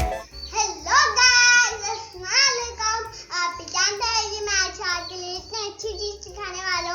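A child singing in a high voice over a low, repeating beat.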